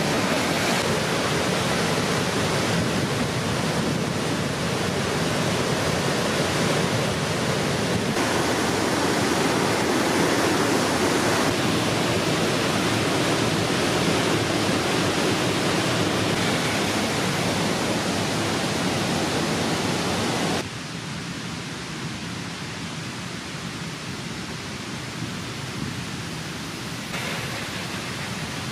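River water rushing over rocks, a steady even rush that drops abruptly to a quieter hiss about twenty seconds in.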